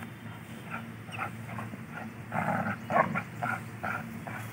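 A dog growling in short bursts while gripping and tugging a decoy's padded bite sleeve in protection training. The bursts get louder a little past halfway.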